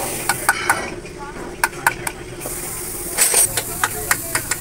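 Metal tools and parts clinking and tapping as they are picked up and handled, a string of sharp clicks with a short hissy scrape about three seconds in, over a steady low hum.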